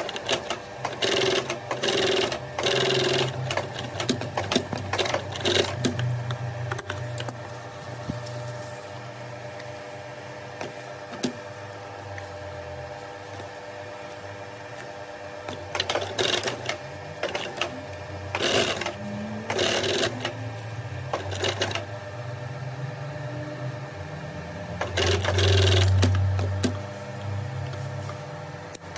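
Industrial sewing machine stitching leatherette in several short runs, its needle clattering fast during each run, with a steady low hum between runs. The last run, near the end, is the loudest.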